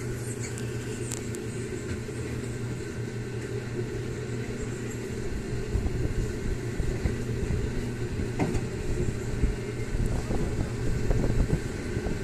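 Small ride car running steadily along its guide-rail track: a low steady hum from its drive with rumble and rattle from the car rolling over the track, and a few short knocks that come more often in the second half.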